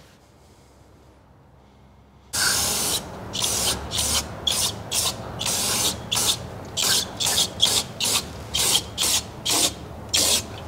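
An aerosol can of non-chlorinated brake cleaner sprays through its straw nozzle, washing old seal material off an engine's front cover. After about two seconds of quiet it gives one long hiss, then about fifteen short hissing squirts in quick succession.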